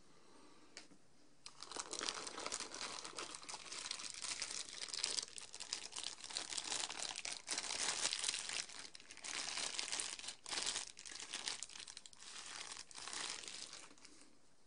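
Thin clear plastic bag crinkling and rustling as a microphone is unwrapped from it by hand. It starts about a second and a half in, runs as a dense crackle, and stops just before the end.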